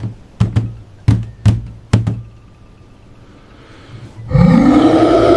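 Intro sound effects: a run of heavy thumps in the first two seconds, then a loud, sustained roar about four seconds in, its pitch rising and then holding.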